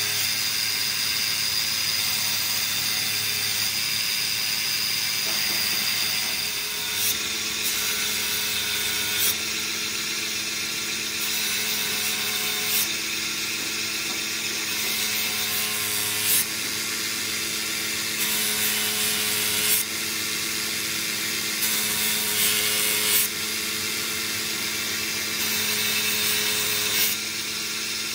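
Pedestal grinder with an abrasive disc spinning steadily with a constant motor hum, while the teeth of a large metal gear are ground against it in repeated short passes, each a brief harsher burst of grinding.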